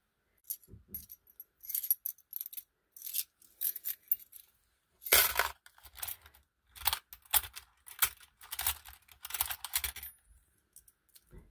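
Small metal gear embellishments clinking and rattling as they are rummaged through by hand, in many irregular short bursts, the loudest a little past the middle.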